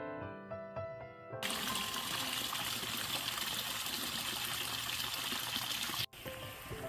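Soft piano music, then from about a second and a half in, water running down a rocky stone channel in a steady rush. Near the end it cuts off abruptly to a much quieter trickle as the piano comes back in.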